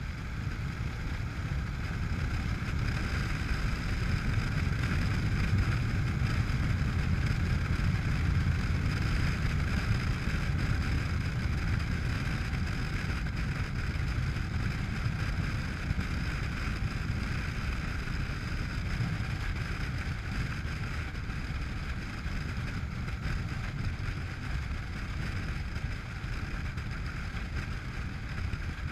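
Honda NC700X parallel-twin motorcycle riding along at road speed: a steady rush of wind over the camera with the engine running underneath. It grows slightly louder a few seconds in and eases off in the second half.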